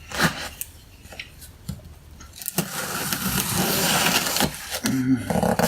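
A shipping package being handled and opened: a few light knocks, then about two seconds of rustling and scraping from about two and a half seconds in.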